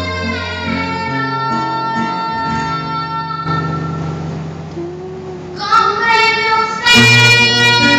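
A woman singing with acoustic guitar accompaniment: she holds a long note, pauses for about two seconds while the guitar plays alone, then comes back in as the guitar gets louder near the end.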